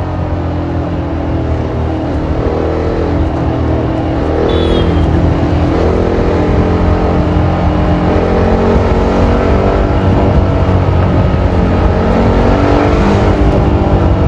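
TVS Apache RR310's single-cylinder engine through its stock exhaust, ridden in traffic: the engine note rises and drops several times as the throttle is opened and eased, getting louder a few seconds in.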